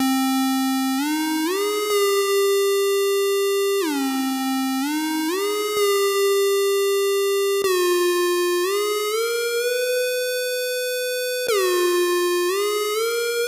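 Synthesizer title music: a single electronic voice playing a slow melody that drops suddenly every few seconds and then climbs back up in gliding steps.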